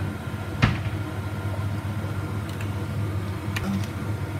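Steady low hum of a household appliance or fan, with one sharp click a little over half a second in and a few faint ticks later.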